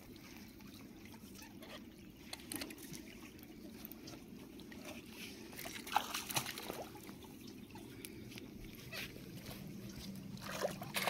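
Shallow river water sloshing and trickling as a hooked rohu is played close to the bank, with a few small splashes about six seconds in and splashing building up near the end.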